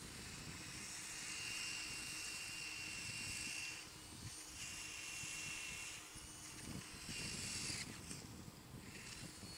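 Hand ice auger drilling into river ice: the cutting blades scrape and grind through the ice in long steady runs, with a faint thin whine above the hiss. The sound breaks off briefly about four seconds in and again near eight seconds.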